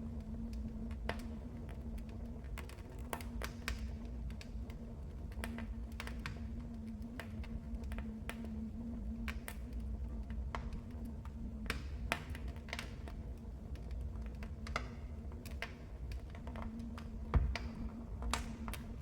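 Wood fire crackling in a fireplace: irregular sharp pops and snaps over a steady low rumble of the flames, with one louder pop about three-quarters of the way through.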